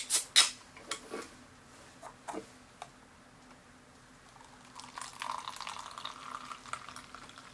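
Two sharp clicks near the start and a few lighter taps as an aluminium drink can and a paper cup are handled. Then, from about five seconds in, a drink is poured from the can into a paper cup.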